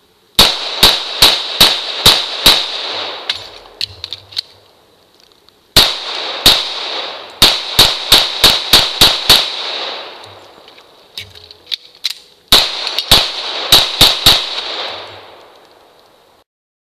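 Rapid-fire gunshots at steel drop targets in three strings, six shots, then nine, then five, with a ringing tail after each string. The two pauses between strings are reloads, with faint clicks in them.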